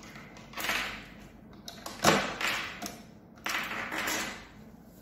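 Hands handling a parking barrier's casing and a small bunch of keys: three short bouts of tapping and clinking, the sharpest about two seconds in.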